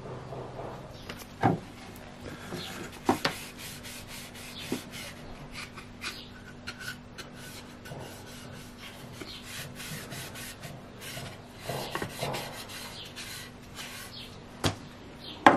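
A rag rubbing food-safe oil into a walnut tray, with a soft, uneven wiping sound and a few light knocks of wood.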